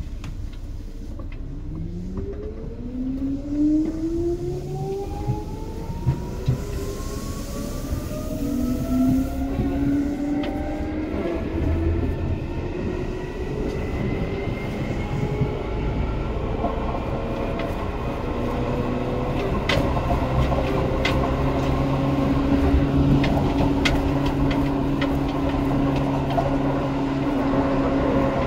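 Seibu 2000 series electric train's traction motors whining as it pulls away, several tones rising steadily in pitch and levelling off into steady running past the halfway point, over the rumble of the wheels, with a few sharp clicks later on.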